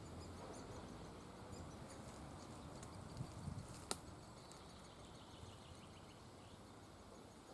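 Faint high chirping of great spotted woodpecker nestlings inside the nest. A few soft low bumps and one sharp click come about three to four seconds in.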